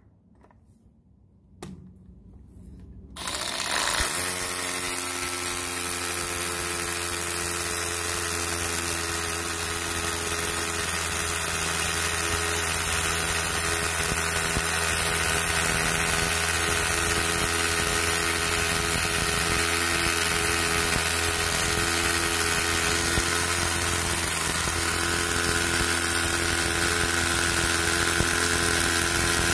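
Milwaukee M12 cordless rotary hammer starting about three seconds in and running steadily, with an even motor whine.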